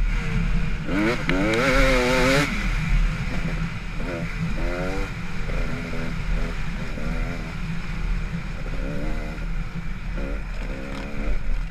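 Dirt bike engine heard from on board, revving up and down as the rider accelerates and shifts along the track: loud high revs for the first two seconds or so, then lower revs with repeated short rises in pitch.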